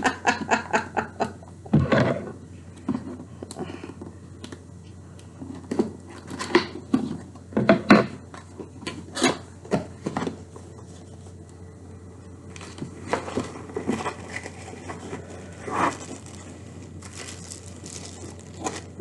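A cardboard box being opened by hand, with irregular rustling, scraping and tearing of cardboard and plastic packaging as an item is pulled out.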